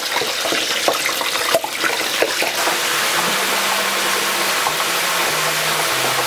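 Flour-dredged frog legs deep-frying in oil at 400 degrees: a loud, dense sizzle and bubbling. Sharp crackles in the first couple of seconds settle into an even hiss.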